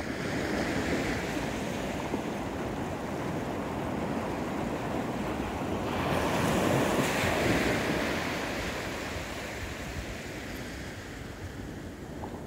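Small surf breaking and washing up a sandy beach. The wash swells louder about six seconds in, then eases off toward the end.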